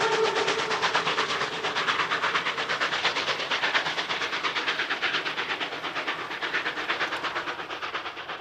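German class 64 tank steam locomotive working under steam, its exhaust beating in fast, even chuffs, with the last of its steam whistle dying away at the start. The chuffing grows a little fainter toward the end.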